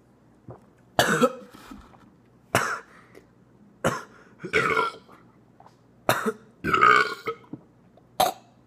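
A man burping repeatedly, about seven loud burps spaced a second or so apart, from gas after gulping down carbonated sparkling water.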